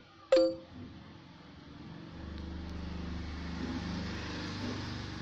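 A phone notification chime rings once, sharp and short, as a new support-chat message arrives. From about two seconds in, a low steady hum rises in the background.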